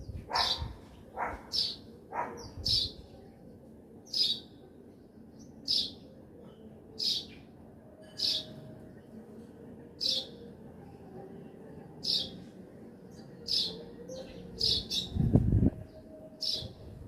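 Small birds chirping: a short, high chirp repeated about once a second, with a few faint calls behind it. Near the end there is a brief low thump, the loudest sound here.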